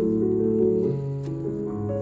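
Keyboard accompaniment playing held chords that change every half second or so, in a pause between sung lines.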